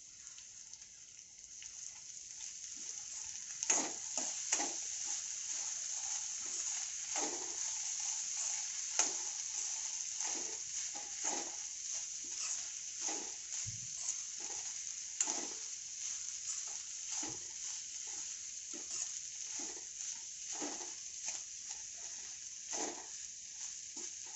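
Sprouted moth beans (matki) frying with oil and spices in a kadhai: a steady sizzle that builds over the first few seconds. A spoon scrapes and knocks against the pan again and again as the beans are stirred in.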